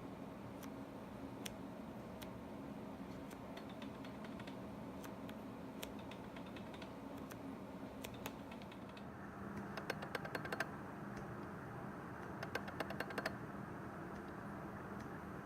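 Tamron 24-70 G2 lens's aperture mechanism clicking when the aperture is changed between f/3.2 and f/2.8 in video mode: a faulty-sounding noise that occurs on two copies of the lens. Two short bursts of rapid clicks come about ten and thirteen seconds in, over faint hiss with scattered single ticks.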